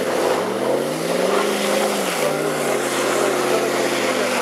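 Off-road vehicle's engine running under load, its pitch rising about a second in and dropping back around two seconds in, then holding steady.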